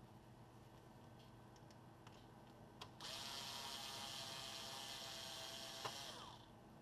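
A small electric motor whirs steadily for about three and a half seconds, starting with a click and sinking in pitch as it winds down. A few light clicks come before it.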